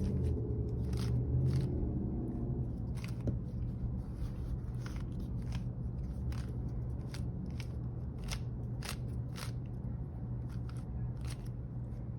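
Plastic Rubik's cube being twisted by hand, its layers turning with a series of short sharp clicks, roughly one or two a second at an uneven pace, over a steady low hum.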